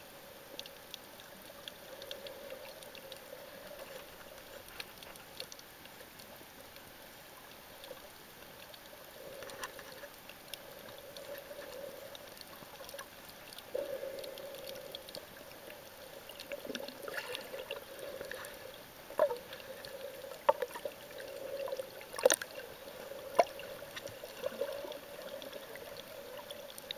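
Muffled water sound heard by a camera underwater: a steady sloshing and gurgling with many faint scattered clicks, and a few sharper clicks or knocks in the second half.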